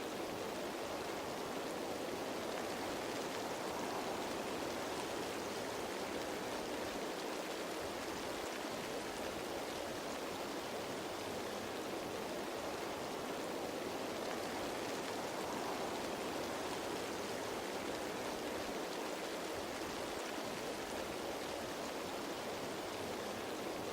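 Rain falling steadily on leaves, an even wash of many drops with no single drop standing out.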